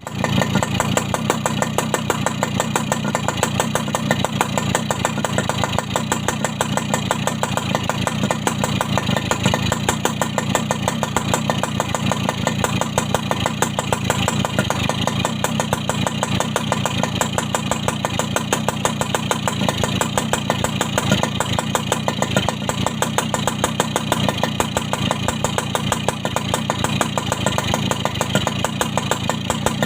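Yamaha RX-Special two-stroke motorcycle idling steadily, its exhaust note coming through the original muffler with the baffles gutted out, a loud, even run of rapid pulses.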